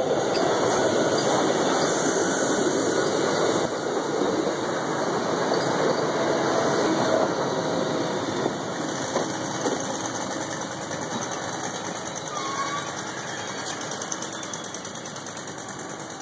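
SEPTA Silverliner electric multiple-unit train rolling past along the platform and slowing, a steady rumble of wheels and running gear that is loudest in the first half and gradually fades.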